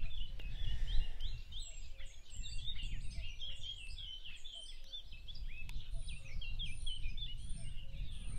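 Dense birdsong from many small songbirds, rapid chirps and trills overlapping without a break, with a common cuckoo calling its two-note "cuck-oo" faintly in the background about once a second. A low rumble runs underneath.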